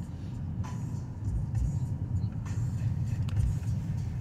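A car's engine and road noise heard from inside the cabin as it drives: a steady low rumble with some irregular low thumps.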